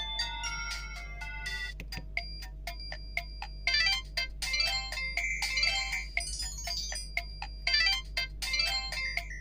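Ringtones playing on a ZTE G S315 mobile phone. A chiming melody ends about two seconds in and a different electronic ringtone tune of rapid notes begins.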